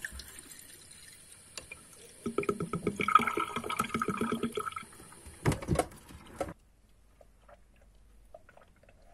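Water running and splashing in a kitchen sink while dishes are washed, with a few loud knocks of dishes near the middle. The sound stops about six and a half seconds in.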